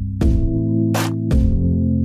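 Background music: sustained low synth chords with sharp drum hits, the chord changing partway through.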